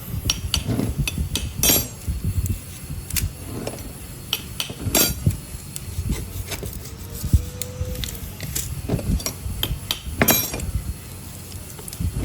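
Irregular metallic knocks and clinks of hand tools working metal parts, some strikes ringing briefly.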